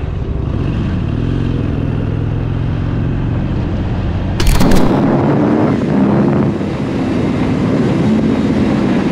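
Motorcycle engine running while riding, with steady road noise. About four seconds in the sound breaks off abruptly into a louder engine whose pitch rises and falls.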